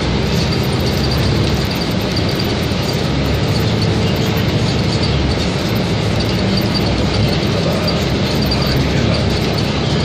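Cabin noise of a city bus under way: steady engine and road rumble with light rattles.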